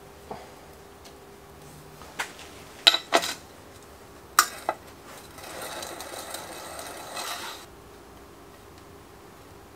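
Sharp metallic clinks of a hex key against bicycle parts, several in a row in the first five seconds. From about five and a half seconds in, a rasping run of about two seconds follows as the front derailleur's clamp bolt is worked with an L-shaped hex key.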